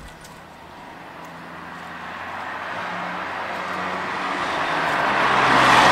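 A road vehicle approaching, its tyre and engine noise swelling steadily to a peak near the end.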